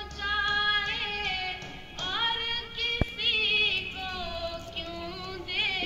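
A girl singing a naat, a devotional poem in praise of the Prophet, solo and unaccompanied, her voice coming over loudspeakers. She holds long notes with ornamented turns, with short pauses between phrases. A single sharp click comes about halfway through.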